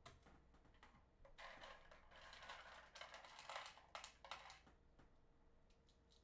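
Faint mechanical keyboard clatter: a dense run of quick key clicks lasting about three seconds, with a few separate clicks before and after.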